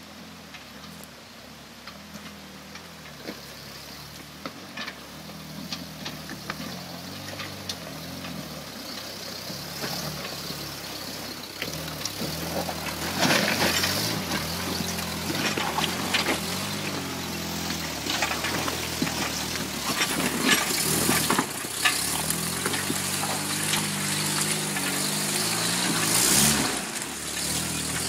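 Off-road truck engine running on a rocky trail climb, its pitch rising and falling as it is revved and eased off. It grows steadily louder, with scattered sharp knocks and crunches from the truck working over rocks.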